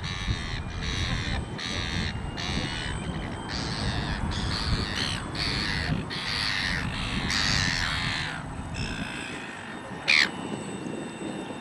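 A bird calling harshly over and over, about two calls a second, stopping near the end. Just after it stops comes one short, loud call that falls steeply in pitch.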